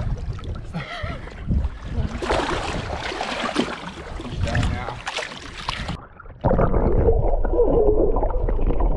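Water splashing and sloshing as a hooked bull shark thrashes at the surface against the boat's side. About six seconds in, the sound cuts to a louder, muffled underwater rush from a submerged camera.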